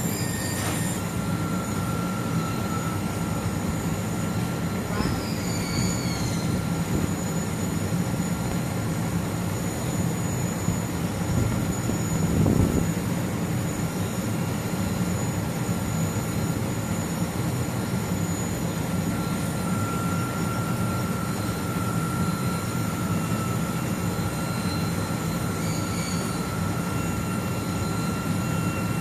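LG air conditioner compressor running steadily: a constant low hum with hiss and thin, steady high whining tones over it. A brief louder swell comes a little before halfway through.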